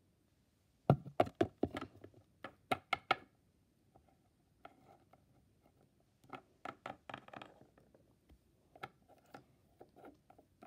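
Hard plastic toy pet figurines tapped and knocked against a smooth tabletop as they are moved by hand: a quick run of about ten sharp taps about a second in, another cluster of taps around seven seconds, then a few scattered light taps.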